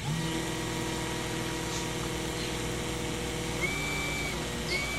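Cordless drill spinning a drill-powered water pump, starting up right at the beginning and running steadily with a whine, its pitch changing about three and a half seconds in; water pours from the hose into a plastic jug.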